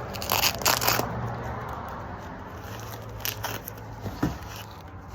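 Packaging being handled and unwrapped, rustling and crinkling, busiest in the first second, then a few light clicks and taps.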